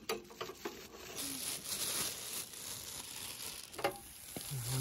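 Plastic bag crinkling as a raw steak is unwrapped, then a steady sizzling hiss from a charcoal grill, with a knock near the end as the steak goes onto the hot grate.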